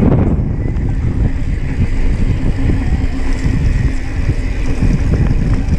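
Wind buffeting the microphone of a bike-borne camera during a fast mountain-bike descent on a dirt trail, with the bike's rattling and knocking over the rough ground mixed in.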